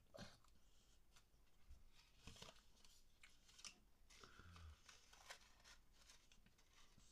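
Near silence, broken by faint scattered clicks and crunches of someone chewing breaded chicken bites.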